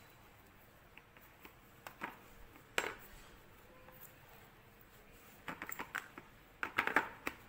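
Light clicks and taps from rolling bread dough flat by hand with a stainless-steel rolling pin on a plastic tray: scattered at first, a sharper knock a little under three seconds in, then quick clusters of taps in the second half.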